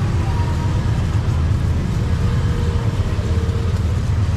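Steady low rumble of street traffic with idling engines.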